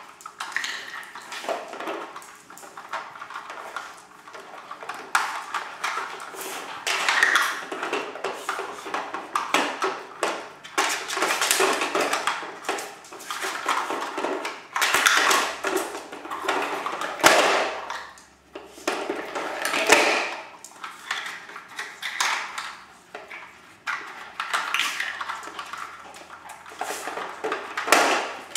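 Terriers nosing and pawing at hard plastic treat-puzzle toys on a tile floor: irregular clacks, knocks and scraping of the plastic pieces and boards, on and off.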